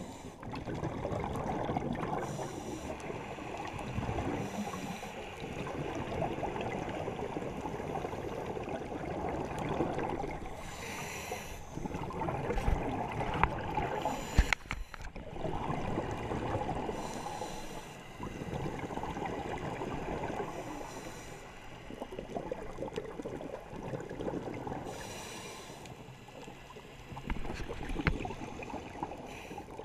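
Scuba diver breathing through a regulator underwater, heard through a camera's waterproof housing: a hiss on the inhale and a long bubbling rumble of exhaled air, repeating every few seconds. A single sharp knock about halfway through.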